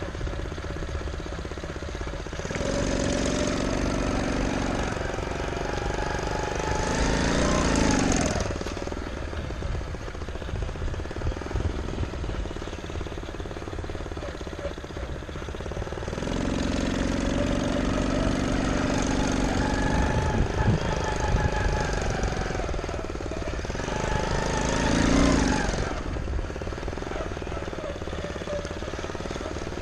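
Small gas engine of a custom-built motorized bicycle running under way, revving up twice, once a few seconds in and again past halfway, its pitch climbing each time and then dropping back. A steady low rumble of wind on the microphone runs underneath.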